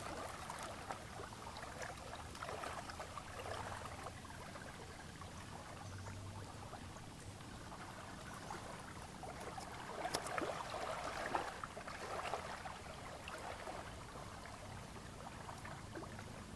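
Shallow water lapping and rippling against the shore, with a few louder moments about two-thirds of the way through.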